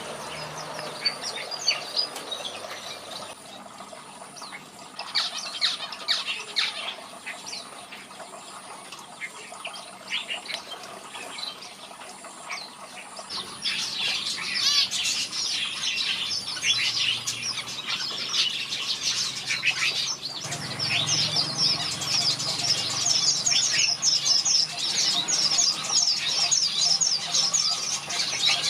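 Aviary birds chirping and singing, a red-whiskered bulbul among them, in a stream of short high calls and trills. The calling grows louder and busier about halfway through, and in the last part a fast string of repeated high notes runs on.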